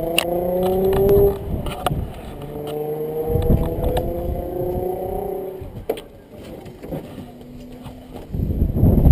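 A car engine accelerating twice, each time rising steadily in pitch for two to three seconds. Knocks and rustling near the end as someone climbs into a car seat.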